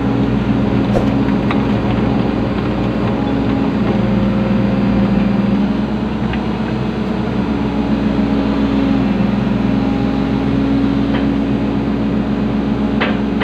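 Komatsu PC120 excavator's diesel engine running steadily with its hydraulics working, heard from inside the cab, as the boom holds and swings a heavy concrete pipe.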